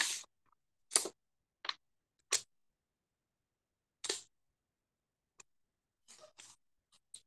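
Short, dry scratching sounds on paper, in about seven separate strokes spaced roughly a second apart and a few close together near the end.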